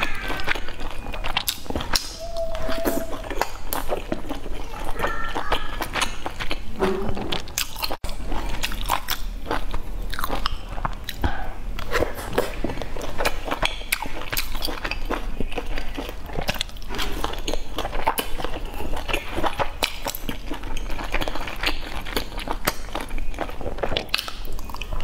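A person chewing and biting into boiled dumplings, a steady run of small, irregular mouth clicks and smacks.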